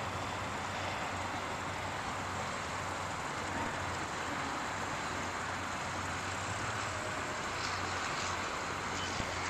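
Twin Suzuki outboard motors running at low speed, a steady low drone under an even hiss.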